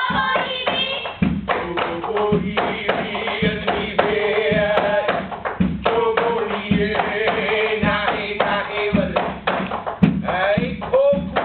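Hawaiian chant (oli/mele) for hula kahiko: a chanting voice holding long, wavering notes. It is paced by a steady beat of ipu heke double-gourd drums, with low thuds and sharp slaps.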